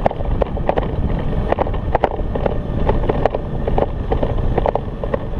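Over-volted Currie-Tech electric scooter at speed under nearly 1,800 W: wind buffeting the microphone over a steady road rumble, with frequent short rattling knocks a few times a second.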